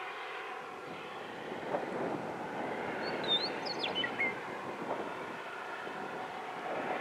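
Diesel locomotives of an approaching Union Pacific freight train running, a steady drone. A bird chirps briefly about three to four seconds in.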